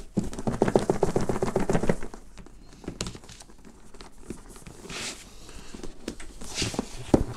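Hands working a cardboard headphone box: fingernails scraping and rubbing the cardboard in a quick rattle for about two seconds, then a few sharp taps and two short sliding rustles as the box is turned and pushed to find its opening.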